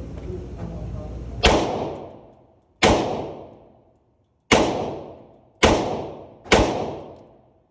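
Five single gunshots fired one at a time in semi-automatic mode, spaced about one to one and a half seconds apart, each sharp crack trailing off in an echo over about a second.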